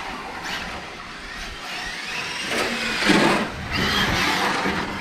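Electric RC car driving on a wet track, its motor whining up and down in pitch with tyre hiss. It is loudest about three seconds in, with a second loud stretch just after.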